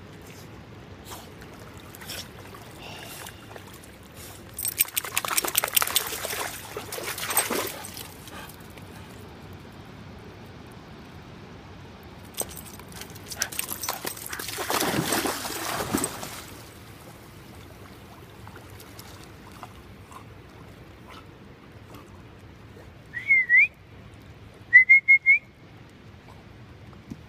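A swimming dog splashing in shallow water, in two noisy stretches of a few seconds each. Near the end come two short whistles, the first dipping then rising, the second rising then level. These are the loudest sounds.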